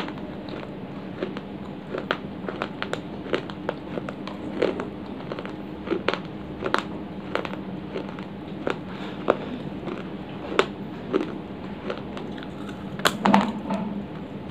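Dry baked clay being bitten and crunched close to the microphone: irregular sharp cracks and crunches, with a louder cluster near the end. A steady low hum runs underneath.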